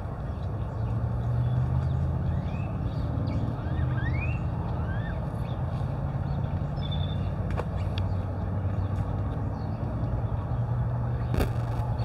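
Steady low rumble of motor-vehicle engine noise. A few short, rising bird chirps come a few seconds in, and a sharp click comes near the end.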